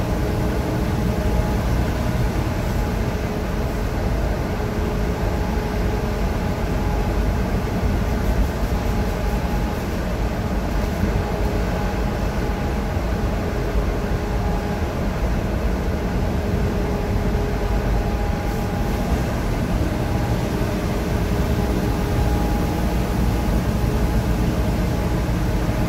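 Steady engine drone and road rumble of a 2019 Freightliner Cascadia semi-truck cruising on the highway, heard inside the cab.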